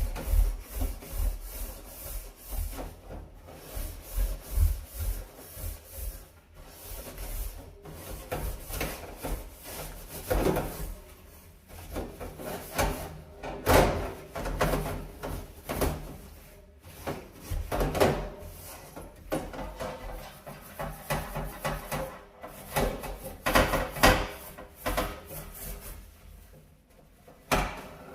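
Irregular scrubbing and brushing strokes, rubbing back and forth on a dirty stove or oven surface. The strokes vary in strength and stop briefly a few times.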